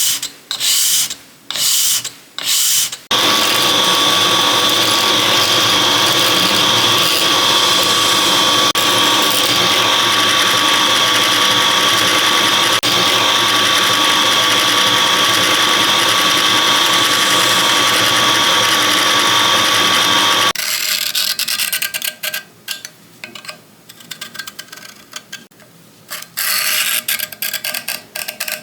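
A power tool starts about three seconds in and runs steadily at one speed with a constant whine for about seventeen seconds, then stops. Short, irregular bursts of tool work come before and after it.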